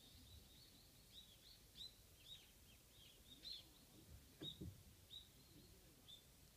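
Faint, rapid high chirping of Japanese white-eyes (mejiro), short thin calls coming several times a second, with two soft low thumps about two-thirds of the way through.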